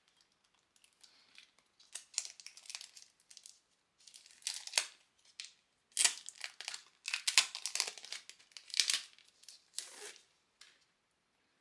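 Clear plastic sticker-sheet sleeves and a paper wrapper crinkling and rustling as they are handled, in irregular bursts that are loudest in the second half.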